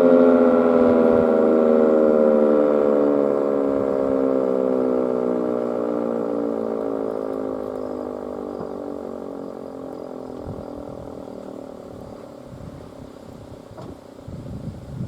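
Sentry 16V1T-B civil defense siren winding down at the end of its alert: its several steady tones slide slowly lower in pitch and fade as the rotor coasts to a stop. Wind gusts on the microphone near the end.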